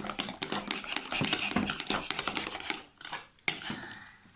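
Spoons clinking and scraping against bowls as slime is stirred: dense, rapid clicks that thin out about three seconds in, with one last sharp click about half a second later.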